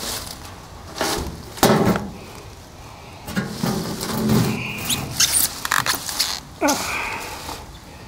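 Leafy vines and twigs rustling and crackling close to the microphone as they are handled, in irregular bursts, the loudest about two seconds in.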